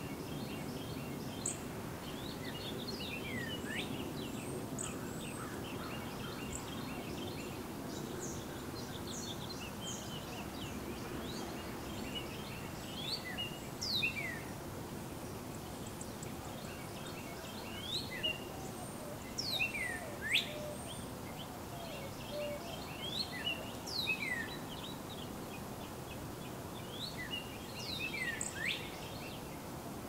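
Songbirds chirping in short, quick, sliding notes, scattered irregularly with a few brief flurries, over a steady hiss from the Canon T3i camera's recording.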